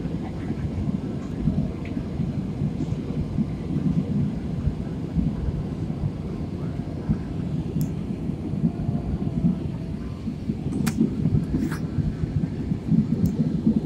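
Steady low rumble of an airliner cabin in cruise: engine and airflow noise, with a few faint clicks in the second half.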